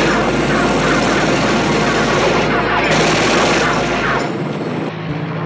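Sustained rapid machine-gun fire from a helicopter's gun, a dense continuous rattle that breaks off about five seconds in, leaving a steadier, quieter helicopter drone.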